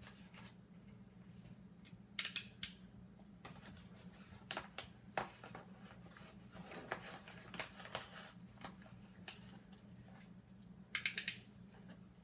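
Packaging being handled and opened by hand: short crisp rustles, snips and clicks, with two louder crinkling bursts about two seconds in and near the end, over a faint steady hum.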